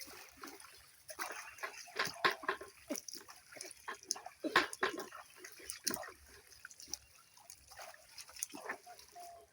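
Water splashing and dripping in irregular short slaps and trickles from a wet cast net being handled at the pond.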